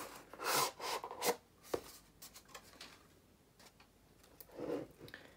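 Cardboard box being slid out of its cardboard sleeve, with short strokes of paper rubbing and scraping and a light tap partway through.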